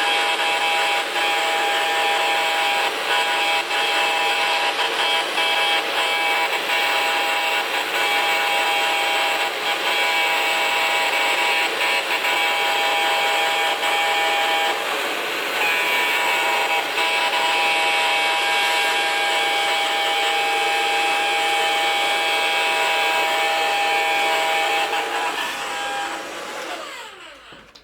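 Handheld blow dryer running steadily, a high motor whine over the rush of air, dipping briefly about halfway through. Near the end it is switched off and the whine falls away as the motor spins down.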